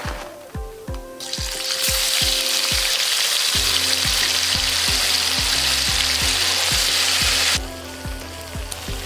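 Hot oil sizzling loudly as pieces fry in a black iron wok: a steady hiss that builds about a second in and cuts off suddenly near the end. Background music with a steady beat runs underneath.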